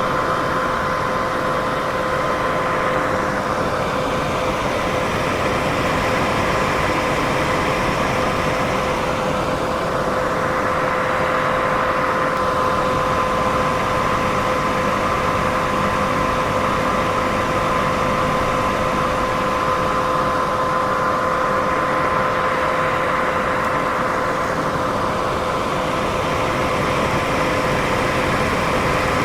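Continuous white noise for sleep: an even, steady hiss with a faint hum held at two pitches underneath, its upper part slowly swelling and fading every several seconds.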